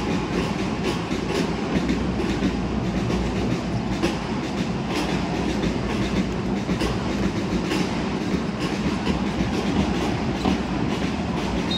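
Basketball game in an arena: a steady low rumble of the hall with many short knocks from the ball being dribbled and players' feet on the hardwood court.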